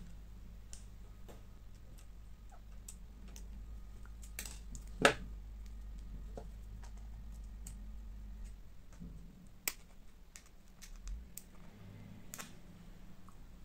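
Small plastic clicks and taps as 3D-printed parts and M3 hex nuts are handled on a wooden desk, with one sharp click about five seconds in.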